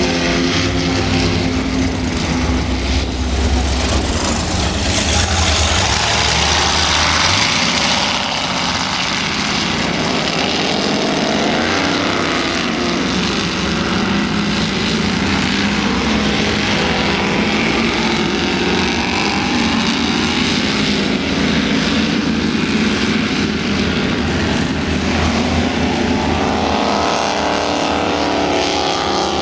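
Offshore racing powerboats' engines running hard as they accelerate past one after another. A deep rumble dominates until about seven seconds in, then engine notes glide up and down in pitch as boats go by, over a steady rush of noise.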